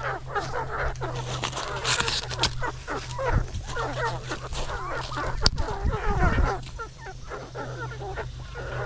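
A flock of chickens clucking and squawking, many short calls overlapping throughout. Dry corn husks rustle briefly as they are pulled off a cob, about two seconds in.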